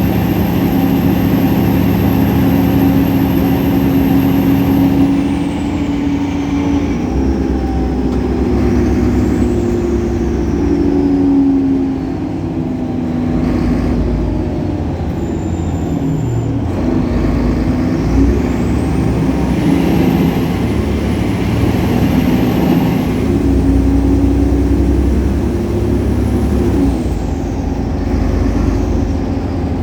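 Solaris Urbino 18 articulated bus's 360 hp DAF Paccar PR265 diesel engine running under way, its pitch rising and falling several times as the bus pulls away, shifts through the ZF Ecolife automatic gearbox and eases off. A thin high whine glides up and down above the engine.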